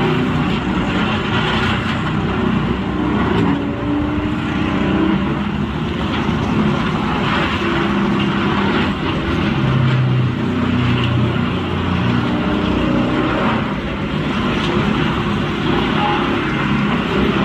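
Heavy wood grinder running under load: a diesel engine note that rises and falls as it labours, over a steady grinding, crackling noise of timber being shredded.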